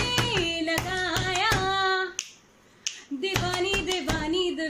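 A woman singing a melody of long, wavering held notes, keeping time with sharp hand claps about two to three a second. She breaks off for a moment about two seconds in, then carries on.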